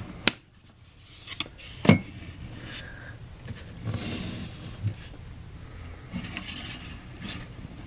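Sharp plastic clicks and knocks from handling a single-cup drip coffee maker, twice loudly, as its lid is shut and its switch pressed, followed by faint rubbing and handling noises.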